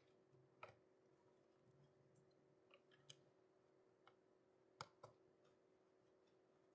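Near silence with a few faint, scattered clicks and taps from small plastic model-kit parts being handled and fitted, over a faint steady hum.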